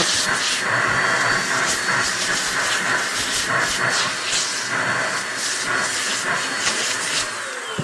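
Compressed air blowing a long, continuous hiss, clearing sawdust out of the stitching holes and fretwork of scroll-sawn leather pieces. The hiss tapers off near the end.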